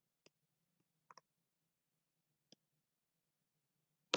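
Sparse clicks of a computer mouse and keyboard during code editing: a single click, a quick double click about a second in, another click, then a louder click near the end.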